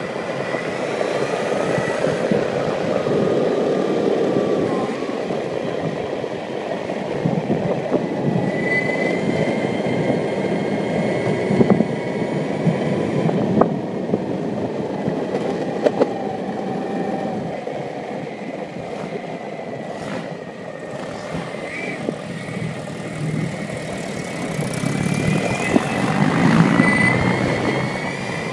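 Dual-motor electric skateboard riding at speed on asphalt: its wheels roll with a steady rumble and its motors give a thin whine that drifts slightly in pitch. A few sharp clicks come from bumps in the road surface.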